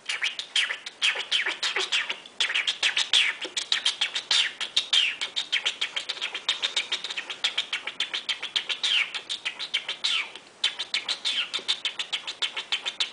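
Monk parakeet chattering: a fast, unbroken run of short calls, many a second, with a few falling notes mixed in. The run pauses briefly about two seconds in and again near ten seconds.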